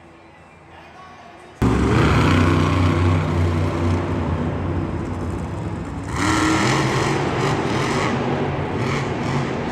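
A vehicle engine running loud, cutting in suddenly about one and a half seconds in after a quiet stretch, and getting louder again around six seconds in.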